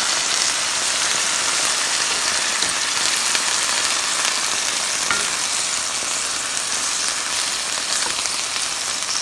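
Vegetable stir fry sizzling steadily in a braiser: collard greens, broccoli and bean sprouts cooking down in soy and hoisin sauce, with a few light clicks.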